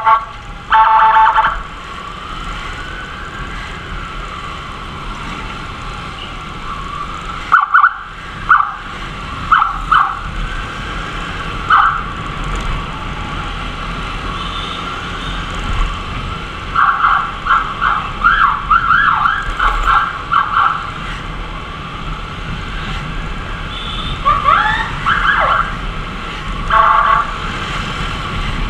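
Ambulance siren wailing, its pitch slowly rising and falling, cut across by runs of short, loud blasts and a few quick upward swoops. A low rumble of wind and engine runs underneath.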